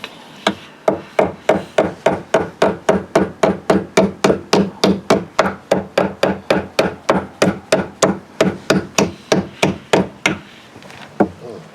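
Hammer striking in a fast, even run of about three to four blows a second, stopping about ten seconds in.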